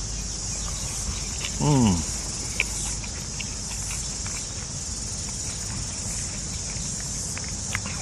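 Steady, high-pitched chorus of insects. About two seconds in, a man eating gives a short falling 'mmm', and a few faint clicks are heard.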